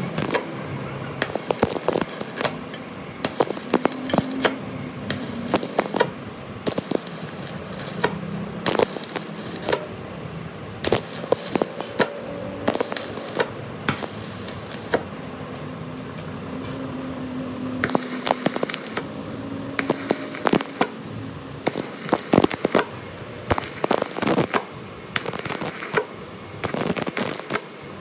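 Irregular sharp metal clicks and knocks with a crackle, from metalwork on a flywheel.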